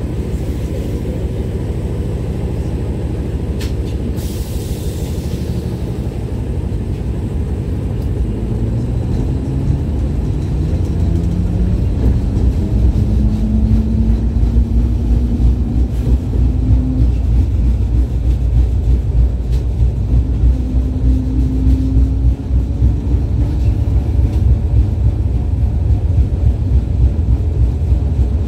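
LVS-86K articulated tram heard from inside while under way: a steady loud rumble of the wheels and running gear on the rails. About a third of the way in, a whine rises steadily in pitch as the tram picks up speed, and it grows louder. A brief hiss comes early on.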